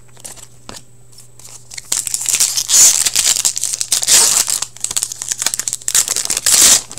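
Foil wrapper of a 15-16 Upper Deck Series 2 hockey card pack being torn open and crinkled by hand. The tearing and crinkling starts about two seconds in, after a few soft handling clicks, and stops abruptly just before the end.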